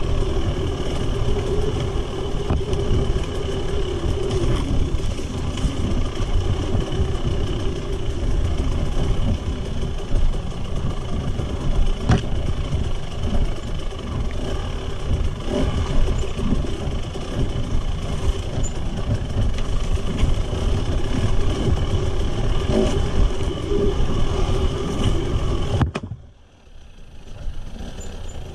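Husqvarna TE300 two-stroke single-cylinder enduro motorcycle engine running at a fairly steady pitch while the bike rides over a rocky trail, with a few sharp knocks. The sound drops away abruptly near the end and then comes back.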